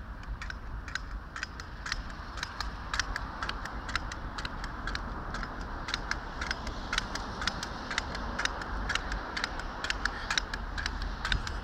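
Pogo stick hopping on tarmac: a steady run of sharp clicks, about two to three a second, one with each bounce, over a low steady rumble.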